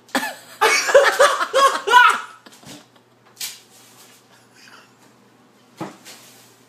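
A person laughing in a quick run of short bursts that fades after about two seconds, followed by a couple of short breathy exhalations.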